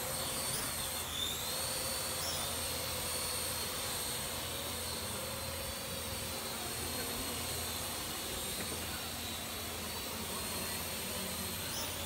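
Small quadcopter drone's electric motors and propellers whining steadily as it lifts off and flies, the pitch stepping up about a second in and again a second later.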